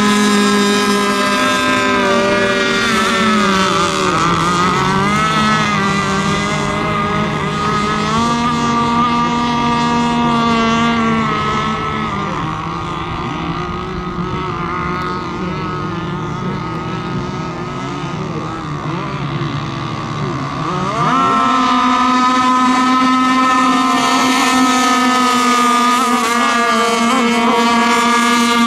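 Radio-controlled racing boats running at speed, their small engines giving a high buzz. The pitch dips about four seconds in, comes back, then sags and grows quieter from about twelve seconds. It rises sharply back to full pitch about twenty-one seconds in.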